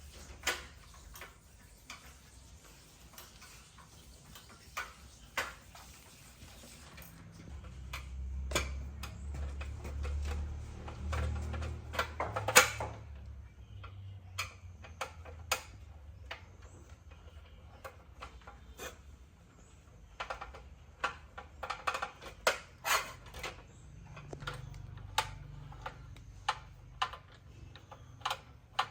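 Irregular clicks and light knocks of tools and small parts being handled on a work surface. A low hum runs for several seconds around the middle, and the loudest single click comes just as it ends.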